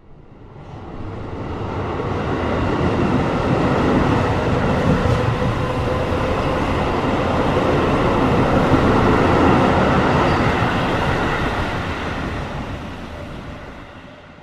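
A train rumbling along the rails, growing louder over the first few seconds, holding through the middle, then fading away.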